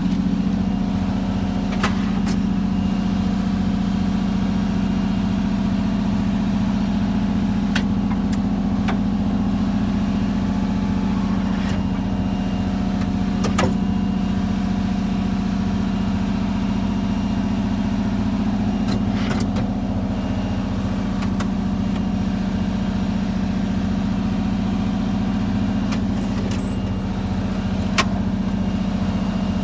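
A GMC RV's engine idling steadily with a low, even hum. A few sharp clicks and clinks of metal tools and toolbox drawers sound over it.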